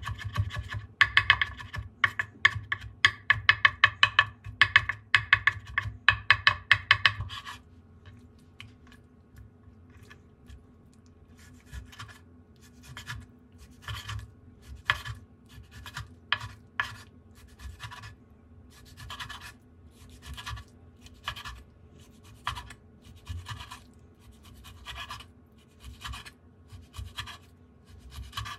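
Chef's knife chopping capers on a bamboo cutting board in rapid taps for about seven seconds. After a short pause come slower single slicing strokes through frozen pollock fillet, about one or two a second, the blade knocking the board each time.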